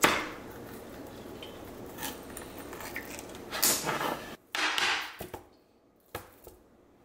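Ring-pull lid of a rectangular metal luncheon meat tin cracking open with a sharp pop, followed by scraping as the metal lid is peeled back. The tin is then handled and tipped over, with a few light clicks and knocks.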